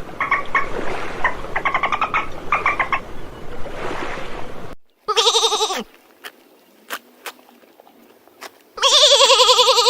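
Animal calls: about five seconds of rapid, high-pitched yelping cries over a noisy background that stops abruptly, then two drawn-out wavering cries, each under a second, whose pitch drops at the end, with a few sharp clicks between them.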